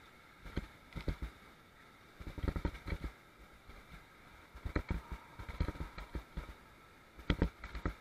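Irregular low, muffled thumps and knocks as an inflatable raft bounces through river rapids, over a faint steady rush of water; the loudest pair of knocks comes near the end.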